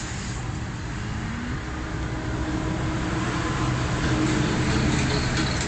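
Road traffic with a motor vehicle's engine hum, steady and growing somewhat louder a few seconds in.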